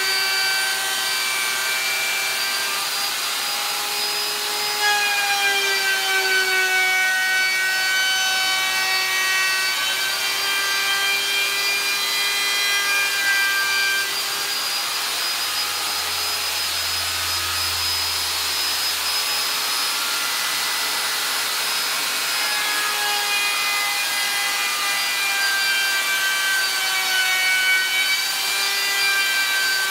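Compact hand-held router running at high speed with a bearing-guided radius bit, cutting a rounded edge along a high-density polyethylene board. A steady high whine over the hiss of the cut, its pitch sagging slightly and recovering a few times as the bit takes load.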